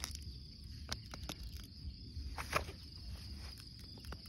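Insects chirring with one steady high tone, with scattered light clicks and rustles as krachiao shoots are handled and pulled among dry pine needles.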